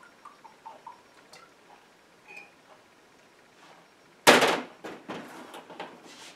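Oil glugging in small pulses as it is poured from a bottle into a glass measuring cup, with faint ticks of glass. About four seconds in comes a sudden loud knock and clatter of glassware being handled, followed by quieter knocks.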